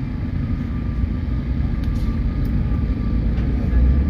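Doosan DX225LCA crawler excavator's diesel engine running, a steady low rumble that swells slightly near the end.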